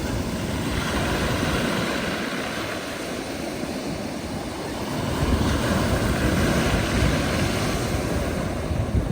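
Black Sea waves breaking and washing up the shore, the surge growing louder about five seconds in.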